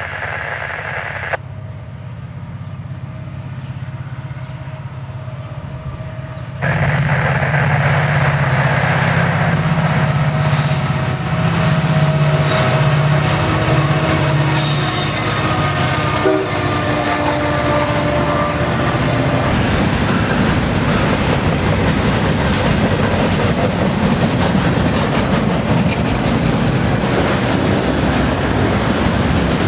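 CN diesel freight locomotive passing close: a deep engine rumble with its air horn sounding for several seconds, suddenly louder about seven seconds in. After it, a long string of autorack and freight cars rolls by, wheels clacking over the rail joints.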